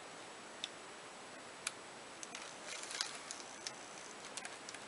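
A gift box lined with tissue paper being held and handled: faint, scattered small clicks and a brief light rustle about three seconds in.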